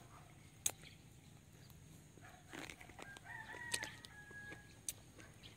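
A rooster crowing faintly, one crow lasting about a second a little past the middle, with a few sharp clicks around it.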